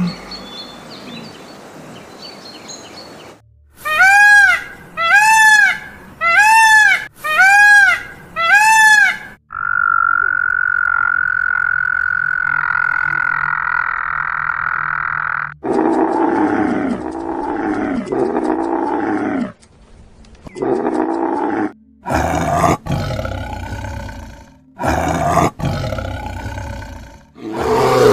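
A sequence of different animal calls, one after another. First come five short arching calls about a second apart, then one long steady high call lasting about six seconds, then a run of loud, harsh calls toward the end.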